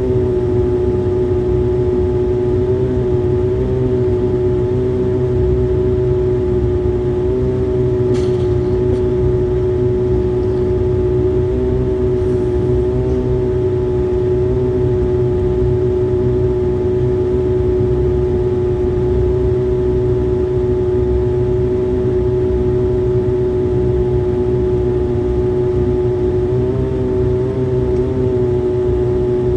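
Airliner's engines running steadily, heard from inside the cabin as the aircraft taxis after landing: a steady drone with a strong mid-pitched hum over a low rumble, the hum wavering slightly in pitch near the end.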